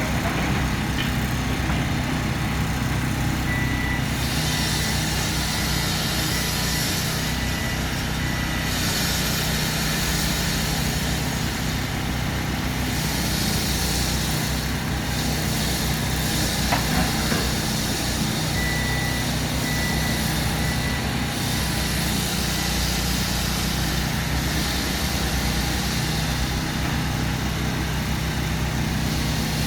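Heavy construction machine's engine running steadily, with a reversing alarm giving two runs of short, evenly spaced high beeps.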